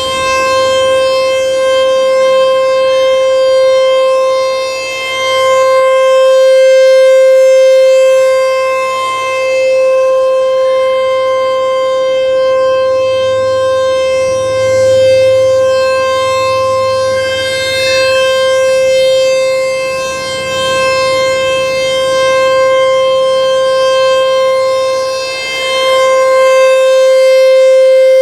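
American Signal T-128 rotating electromechanical outdoor warning siren sounding a steady tone. It holds one pitch while its loudness swells and fades about every seven seconds as the rotating head sweeps past.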